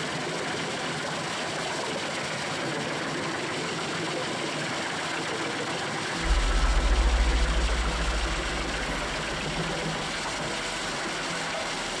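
Doppstadt DH 812 LD truck-mounted wood chipper running with a steady mechanical noise. About six seconds in a deep rumble sets in suddenly and dies away over the next few seconds.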